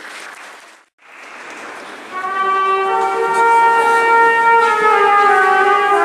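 Instrumental music starts about two seconds in after a short break: wind instruments play several long held notes together.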